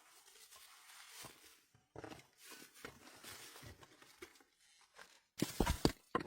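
Footsteps crunching in snow: faint and scattered at first, then a loud, close run of crunching steps starting near the end.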